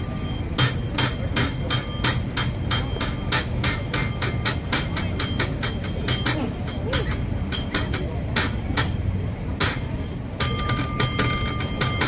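San Francisco cable car bell rung by pulling its overhead cord, in a fast, uneven rhythm of clangs with short pauses between runs of strikes.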